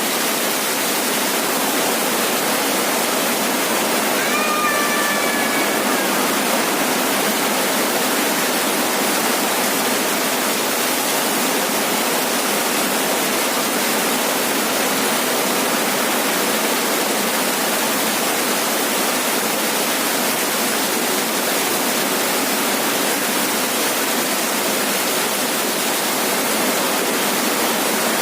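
Heavy rain falling steadily on a roof, a dense even hiss. About four seconds in, a brief faint pitched call sounds through it.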